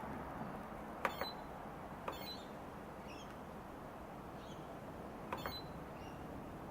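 Treadmill console buttons being pressed: a few sharp clicks in two clusters, about a second in and again near the end, several with a short high electronic beep.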